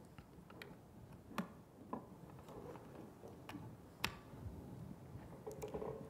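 Quiet room tone with scattered faint clicks and ticks, a few seconds apart, and a faint voice near the end.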